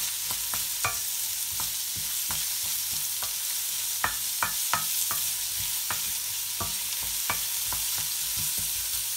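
Chopped onion frying in hot oil in a metal kadhai with a steady sizzle. A wooden spatula stirs it, scraping and clicking against the pan at irregular moments a few times a second.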